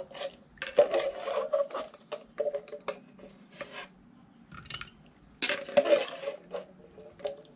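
Metal spoon scraping and clinking inside a metal pot while scooping out boiled jackfruit seeds, in three bouts, the pot ringing with each.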